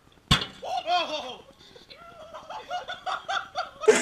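A raw egg bursting inside a microwave oven with one sharp bang about a third of a second in, followed by people laughing.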